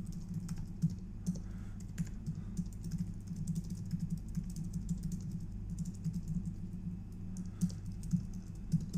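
Typing on a computer keyboard: a run of quick, irregular key clicks while code is written, over a steady low hum.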